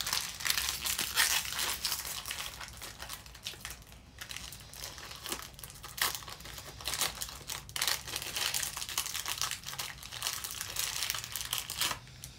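A crinkly plastic candy wrapper on a Peeps lollipop ring being worked open by hand: irregular crackling and rustling with some tearing, dying down near the end.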